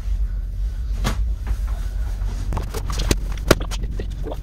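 Futon bedding being handled and spread out: rustling of the quilt and a series of soft knocks and thumps, thickest in the second half, with the sharpest about three and a half seconds in. A steady low hum runs underneath.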